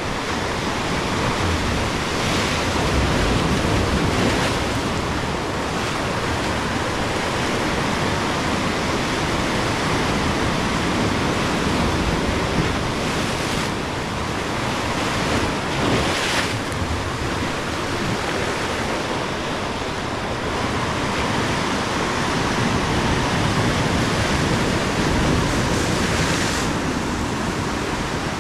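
Ocean surf breaking and washing over shoreline rocks: a continuous rush of churning water that swells several times as waves break.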